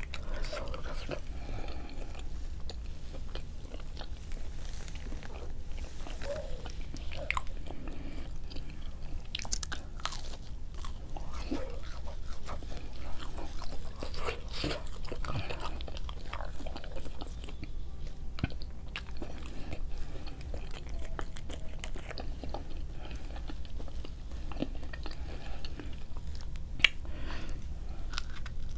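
A person eating McDonald's food close to the microphone: steady chewing and crunching with many small scattered clicks, and one sharp click near the end. A steady low hum runs underneath.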